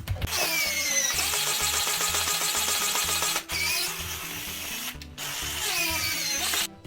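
Electric power drill running in three bursts, stopping briefly twice and cutting off near the end, over background music.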